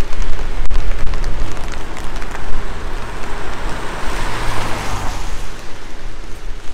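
Rain falling on a wet street, with scattered drop ticks. A car passes close by on the wet road about four seconds in, its tyres hissing on the wet asphalt over a low engine hum.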